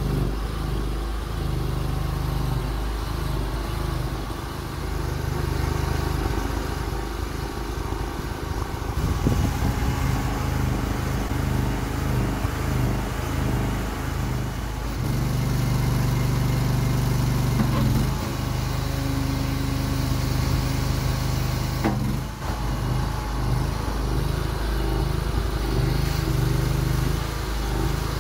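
Homemade mini excavator's engine and hydraulic pump running steadily, its note changing several times as the boom, arm and bucket are worked, with a few brief clicks.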